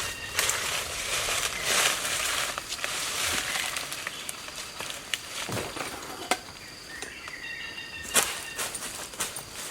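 Forest sounds: rustling and crackling in dry leaves for the first few seconds, with scattered clicks, a steady high insect drone and a few bird calls.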